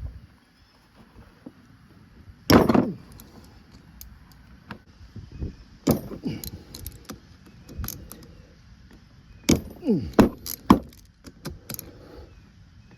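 Metal parts of a power steering pump clinking and knocking as they are handled and pulled apart during disassembly. There is one loud clank about two and a half seconds in and a quick run of clinks near the end.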